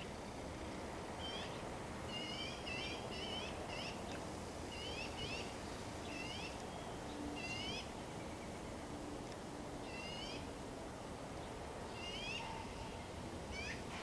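A small songbird calling repeatedly: short, high, upward-sweeping chirps, some single and some in quick clusters, at irregular intervals over a steady outdoor hiss.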